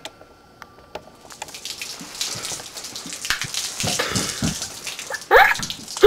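A hiss of falling water, like heavy rain, that comes in about a second and a half in and dies away near the end. A short vocal sound follows just before the end.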